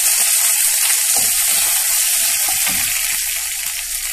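Chopped onions and curry leaves sizzling hard in hot coconut oil with popped mustard seeds, the hiss slowly easing. A wooden spatula stirs them near the end.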